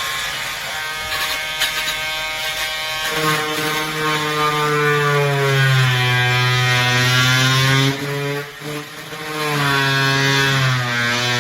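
Cordless oscillating multi-tool running, its pitch sagging and rising again as the blade loads up in the cut. It stops briefly about eight seconds in, then starts again.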